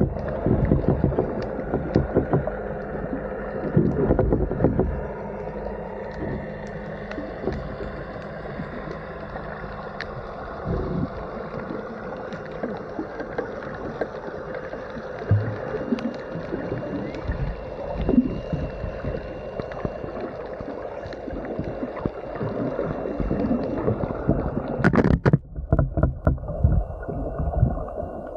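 Muffled underwater sound picked up through an underwater camera: a low rumble of moving water with irregular knocks and bumps and a faint steady thin tone. About 25 seconds in there is a short burst of harsher noise, after which the sound turns duller.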